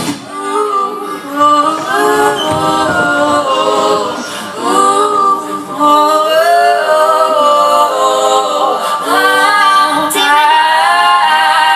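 A cappella group singing: several voices in harmony holding long notes, with no drums or bass.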